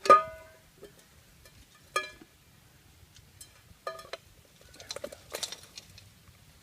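Metal clanks with a short ring as steel tongs knock against a hot crucible being lifted out of a coal-fired furnace. The loudest clank comes right at the start, others about two and four seconds in, then a brief scraping clatter.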